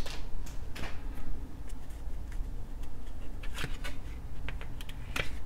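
A hockey card pack being opened and its cards handled: scattered crinkles and light clicks of foil wrapper and card stock, over a low steady hum.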